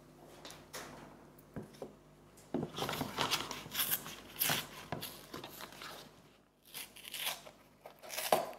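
A small paper carton being pulled open by hand: the paperboard gable-top flaps crackle and tear apart in a dense run of scratchy sounds, with a few more sharp ones near the end.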